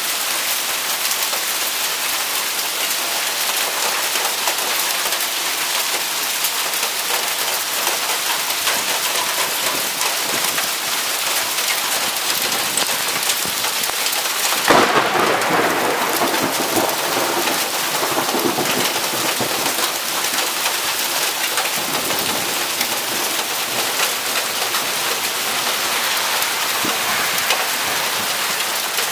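Heavy hail and rain drumming on brick pavement, road and car bodies, a dense steady hiss. About halfway through a sharp thunderclap cracks, close by, and rumbles on for a few seconds.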